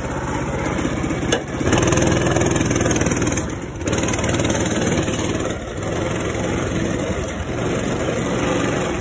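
Coleman CT200U-EX mini bike's single-cylinder four-stroke engine running under throttle while being ridden, its note swelling and easing as the throttle is twisted and let off, with brief drops about a second and a half in and again around three and a half seconds in.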